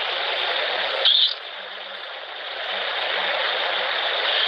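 Steady hiss of white-noise static from a Necrophonic ghost-box app session, played back from a recording. There is a short brighter chirp about a second in, and the hiss drops in level briefly just after.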